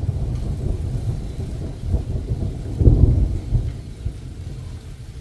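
Wind buffeting the microphone: a loud, gusty low rumble that swells strongest about three seconds in, then eases off.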